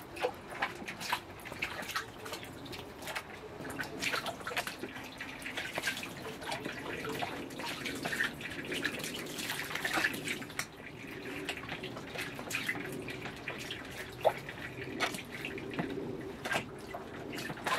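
Water sloshing and dripping in a plastic basin as nutrias (coypu) move about bathing in it: irregular small splashes and drips.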